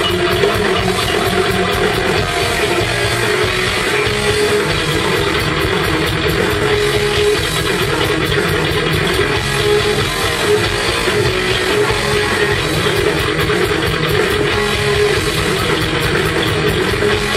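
Heavy metal band playing live and loud, heard from the audience: distorted electric guitars, bass and drum kit, with a guitar line of repeated notes standing out.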